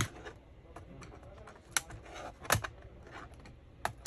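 Sharp, irregular plastic clicks and snaps as a laptop's keyboard latches are pried loose, loudest at the start and about two and a half seconds in, with a brief scrape just before.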